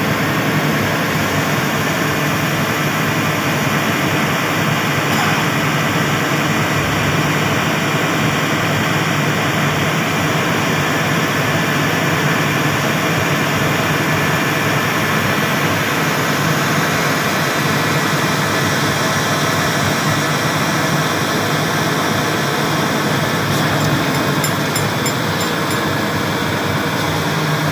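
Boom truck's diesel engine running steadily, driving the crane's hydraulics as it lifts and lowers concrete culvert pipes; a constant low hum under a dense even noise.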